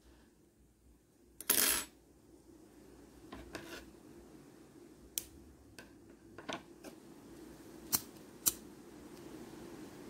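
Scissors cutting the crochet thread in one short snip about a second and a half in, followed by several sharp, small clicks of the tools being handled.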